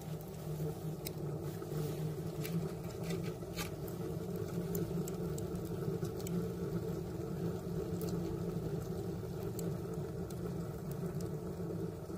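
Homemade rocket-style wood stove burning hard: a steady low roar of draft air pulled through the feed box and up the chimney, with scattered faint crackles from the burning wood.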